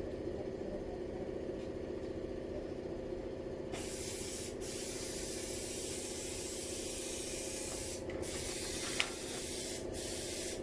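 A steady motor hum, then about four seconds in a pressurised spray starts hissing and runs on with four short breaks, as if the trigger were let go and squeezed again.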